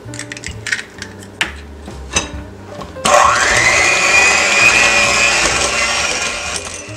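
Electric hand mixer switching on about three seconds in, its motor whine climbing as it gets up to speed, beaters churning eggs into creamed butter-and-sugar batter, then cutting off just before the end. Soft background music is heard before the mixer starts.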